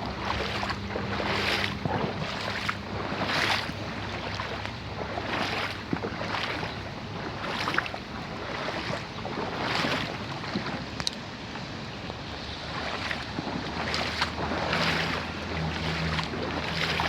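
Flooded stream rushing, with gusts of wind buffeting the microphone every second or so.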